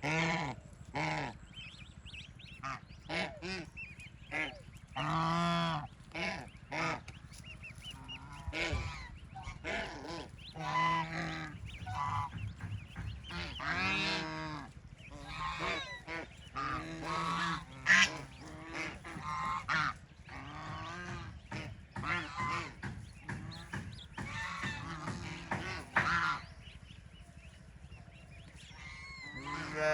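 Ducks quacking and honking over and over, in short calls that come singly and in quick runs at irregular intervals.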